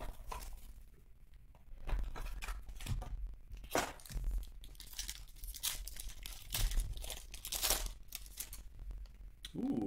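A foil trading-card pack wrapper being torn open and crinkled by hand, in a series of short, sharp rips and crackles.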